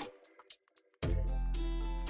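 Background music with a beat. It drops out for about half a second, then comes back about a second in with heavy bass.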